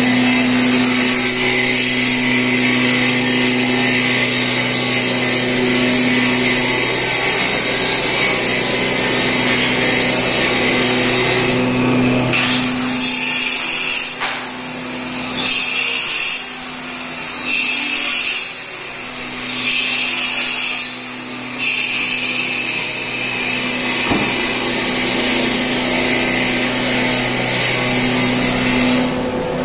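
Combination planer-saw woodworking machine running: a steady motor hum under a loud, high cutting hiss. About midway the high hiss drops away and comes back several times before settling steady again.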